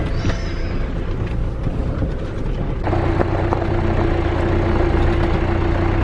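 A 4WD vehicle's engine running as it drives along; about three seconds in the sound switches to a steadier, louder engine drone at an even pitch.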